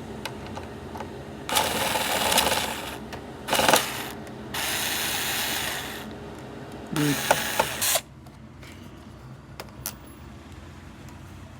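Screwdriver turning out screws from a PS5 console's casing, heard as four short rasping bursts with small clicks between them.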